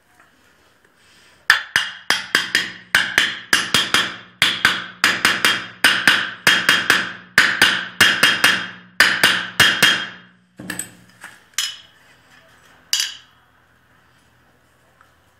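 A small hammer tapping a fitted part down into its seat in a mower engine's aluminium crankcase, with sharp metallic ringing strikes. There are many quick taps, often in pairs, for about nine seconds, then a few lighter taps before it stops.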